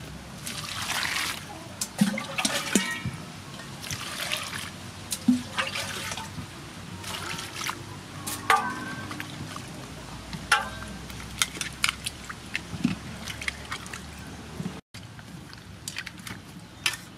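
Water splashing and trickling in an aluminium basin as vegetables are washed by hand, with repeated sharp clicks and knocks against the metal bowl. The sound cuts out for an instant about three-quarters of the way through.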